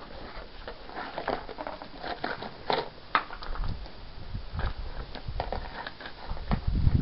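Polish Tatra Sheepdog puppies eating from dishes at feeding time: a run of irregular clicks and crunches of chewing.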